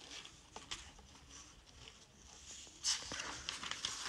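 Hands handling a hardcover notebook: a few soft taps, then about three seconds in a louder rustle with small ticks as the cover and pages are turned.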